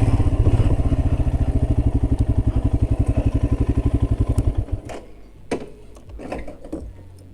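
Royal Enfield Himalayan's single-cylinder engine idling with an even, rapid pulse, then switched off about four and a half seconds in. A few light clicks and knocks follow.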